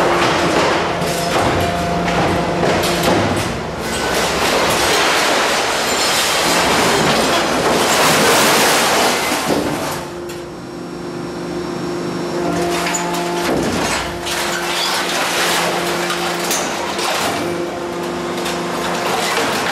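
Scrap metal clattering, crashing and scraping as tangled wire scrap is dropped from a hydraulic grab and handled in a scrap press, over the steady hum of hydraulic machinery. About ten seconds in, the clatter eases and the hum carries on alone for a few seconds before the metal clanging resumes.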